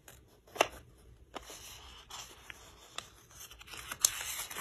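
Paper page of a picture book being handled and turned by hand, rustling softly, with a sharp click about half a second in and louder rustling near the end.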